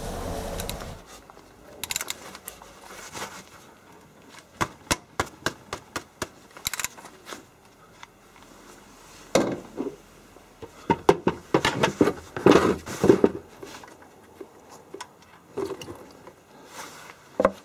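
A hand wrench loosening the 15 mm drain plug on a car engine's oil pan: a string of short metallic clicks, some coming about twice a second. A plastic drain bucket is shifted and scraped into place under the pan.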